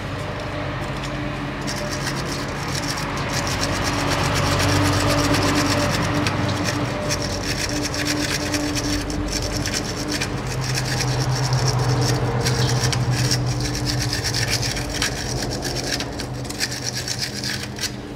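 An old hand brush scrubbing caked dirt off the drain and fill plugs on a rear differential housing: a continuous rapid rasping scrub of bristles on metal.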